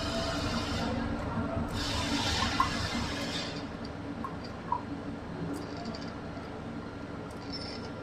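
Black tinter paint pouring from a tin's pouring lid into a mixing cup on a scale, with a hiss of flowing liquid from about two seconds in to about three and a half seconds. A steady low hum runs underneath, and small clicks come twice.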